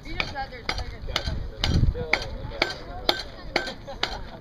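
Steady knocking, about two sharp knocks a second, from tapping a load of bamboo skewers down into the barrel of a muzzle-loading cannon.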